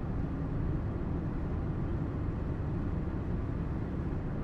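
Steady low rumble of a running vehicle engine, even throughout with no distinct knocks or changes.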